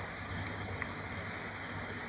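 Steady background noise with a low hum underneath, and one faint click a little under a second in.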